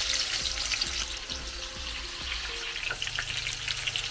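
Chicken drumsticks frying in hot oil in a pan: a steady sizzle with dense crackling as pieces are set into the oil with tongs.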